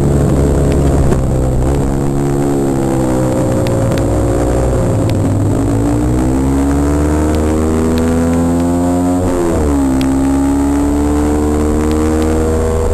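Kawasaki KSR110's single-cylinder four-stroke engine under hard throttle, heard from the rider's helmet, its revs climbing steadily, dipping sharply about nine seconds in, then climbing again.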